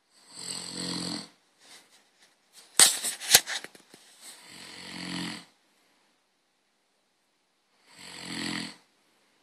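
Snoring: three long snores about three and a half seconds apart. Between the first two, about three seconds in, comes a short burst of sharp clicks that is louder than the snores.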